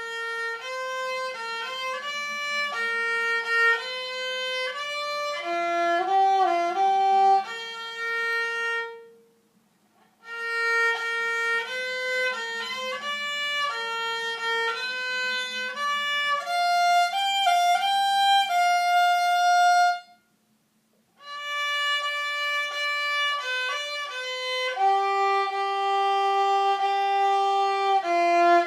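Solo violin played with the bow by a young student, a melody of held and moving notes in phrases. It stops briefly twice, about ten and twenty seconds in, then carries on.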